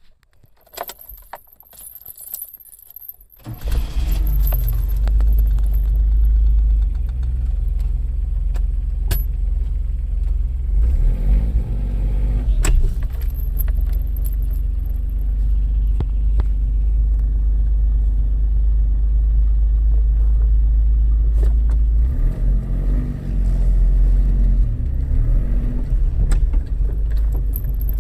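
Keys jingling and small clicks. Then, about three and a half seconds in, a Suzuki Jimny's engine starts and keeps running with a steady low rumble.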